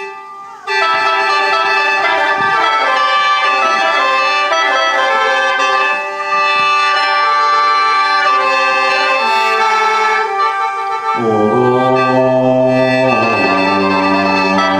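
Khaen, the Lao bamboo free-reed mouth organ, playing an opening passage of held chords over a steady drone note. About eleven seconds in, lower notes come in and the chords shift.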